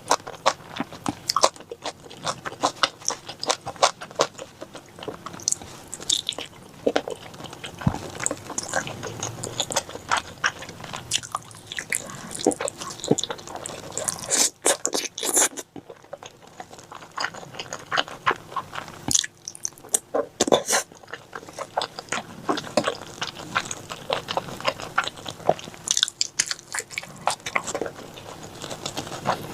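Close-miked eating: a person biting and chewing spicy pork, with many irregular crunches and clicks of the mouth and food.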